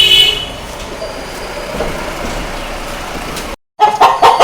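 Steady background noise for about three seconds. After a sudden break near the end, chickens start clucking loudly.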